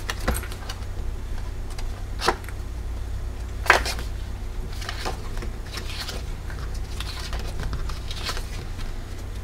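Pages of a small top-bound paper pad of cardstock journaling cards being lifted and flipped over one at a time, each turn a short papery flick, about one a second, the loudest a little under four seconds in.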